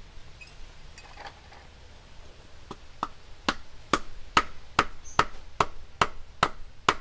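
A blade chopping and splitting nipa palm fruit, a run of about eleven sharp strikes roughly two a second that start a little under three seconds in and get louder.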